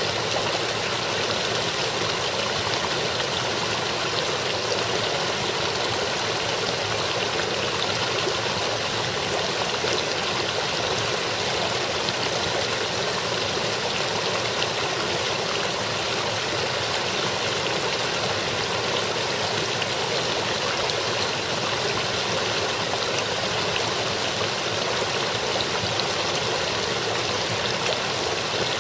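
Small stream running over rocks and around ice shelves, a steady, even babbling of water.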